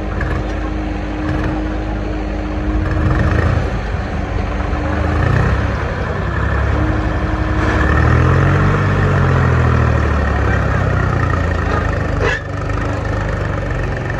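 Diesel engine of a JCB backhoe loader running while loading soil, revving up and down under load about eight to ten seconds in, with a sharp knock about twelve seconds in.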